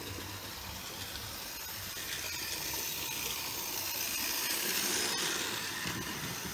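Model freight train rolling past on the track: a steady rush of wheels on rails that swells about five seconds in and then eases as the last car goes by, with a single click near the loudest point.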